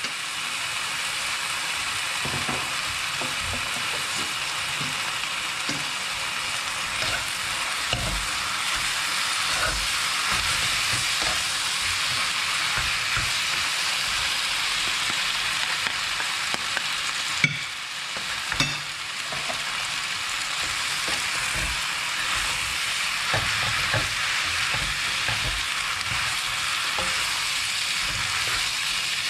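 Instant noodles sizzling in a hot pan as they are stir-fried, with a spatula knocking and scraping against the pan now and then. A sharp click comes a little past halfway, and the sizzle dips briefly just after it.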